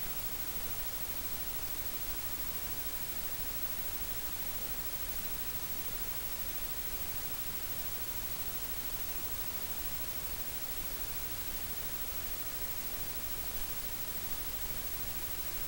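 Wind blowing through a bamboo grove, the leaves rustling as a steady, even hiss.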